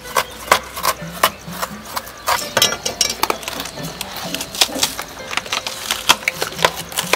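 A banana stem's layered sheaths being torn and peeled apart by hand: an irregular run of sharp snaps and rips, about two or three a second, as the fibrous layers split away.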